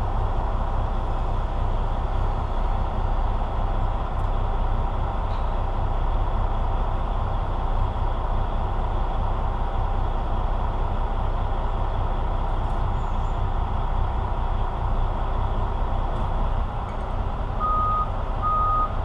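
Diesel engine of a semi-truck tractor running steadily as it backs up to a lowbed trailer. Near the end a reversing alarm starts beeping, about two beeps a second.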